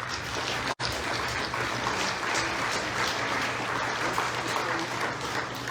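Audience applauding steadily, with a brief cut in the sound just under a second in.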